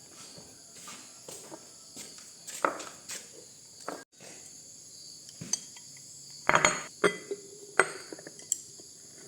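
Insects chirring steadily in a high-pitched drone, with a handful of sharp knocks and clinks, the loudest a little past the middle.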